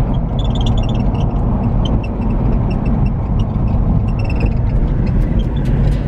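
A four-wheel drive cruising along the road: a steady low engine and road rumble, with faint, scattered high ticks over it.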